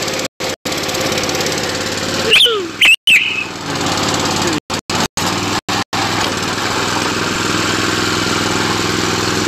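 A 7.5-inch gauge Titan Junior ride-on locomotive running steadily along its track, a continuous mechanical running noise with a low hum. A few brief high-pitched squeaks come two to three seconds in, and the sound cuts out for split seconds several times.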